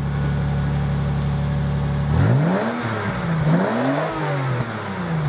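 1994 Toyota Supra's naturally aspirated straight-six idling through its new smaller-diameter cat-back exhaust, then blipped three times from about two seconds in, the pitch rising and falling with each blip before dropping back toward idle near the end.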